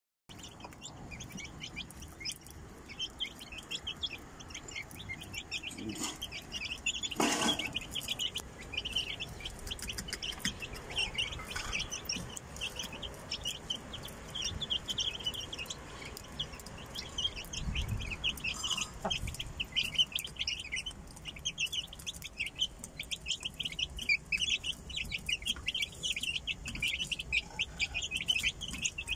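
Aseel chicks peeping: a dense, continuous chatter of many short, high chirps.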